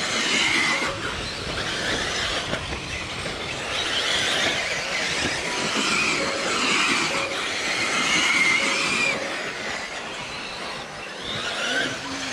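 Radio-controlled race cars running laps, their motors whining in pitches that rise and fall as the cars speed up and slow down through the corners.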